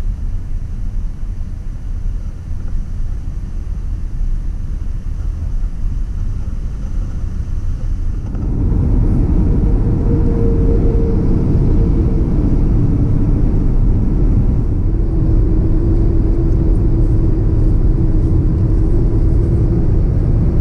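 Steady low rumble that grows louder about eight seconds in, with a faint steady hum in the later part.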